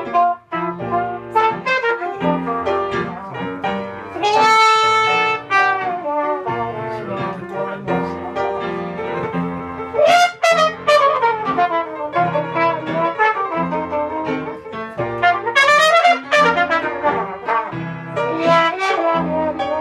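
Live traditional jazz: a trumpet plays a solo with bends and runs, over piano accompaniment with a steady pulse of low notes.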